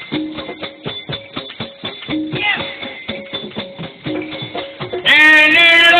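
Instrumental break in Wayang Kulit music: quick, busy drum and percussion strokes under short held notes. A louder melody line with a wavering pitch comes in near the end.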